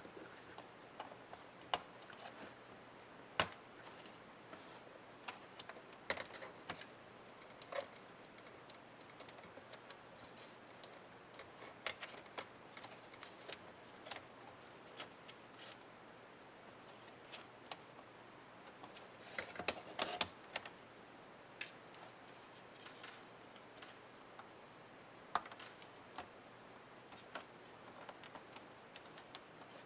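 Irregular small clicks and taps from laptop parts and tools being handled as a Dell Inspiron 15 7537 laptop is taken apart, with a brief busier cluster of clicks and rustle about two-thirds of the way through.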